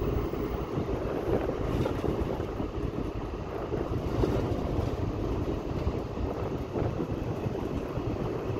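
Car driving along a paved road: a steady mix of engine and tyre noise, with wind buffeting the microphone.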